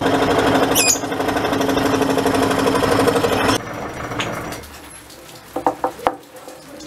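Scroll saw running, its thin reciprocating blade cutting through a wooden block with a loud, steady buzz. A brief high squeal about a second in. The buzz drops off sharply about three and a half seconds in, followed by a few sharp knocks near the end.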